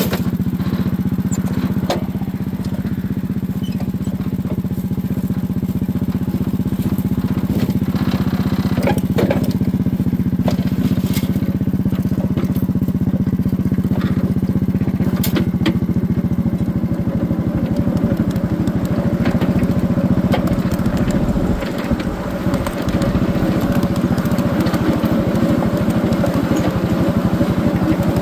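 Small engine of a ride-on backyard train running steadily as it hauls a gondola loaded with old timbers along the track, with a few sharp clicks and knocks from the moving train.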